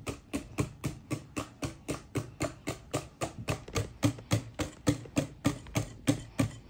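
Wire whisk beating eggs and sugar by hand in a glass bowl, the wires clicking against the glass in a steady rhythm of about four strokes a second.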